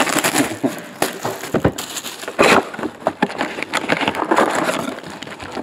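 Plastic wrap and cardboard of a sealed trading card box being torn open, with crinkling foil card packs handled and pulled out: an irregular run of crackling, tearing and sharp clicks.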